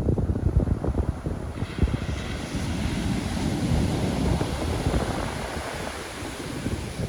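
Pacific Ocean surf: a wave breaks and washes up the shore, its hiss building about a second and a half in and fading away near the end, while wind buffets the microphone with a low rumble throughout.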